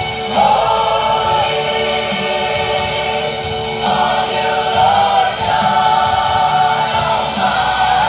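A choir singing in long held notes, with new phrases entering a few times.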